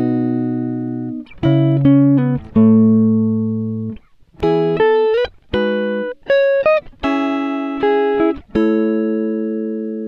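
Background music: a plucked-string instrument picks out a slow tune of notes and chords, each one struck sharply and ringing away before the next.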